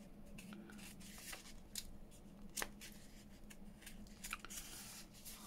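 Faint rustling and light ticks of craft paper and vellum sheets being handled, with a few sharper clicks scattered through. A low steady hum runs underneath.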